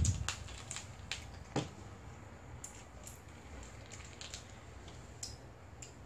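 Jelly beans clicking lightly against a plastic plate as fingers pick through them: a few scattered soft clicks, the loudest about one and a half seconds in.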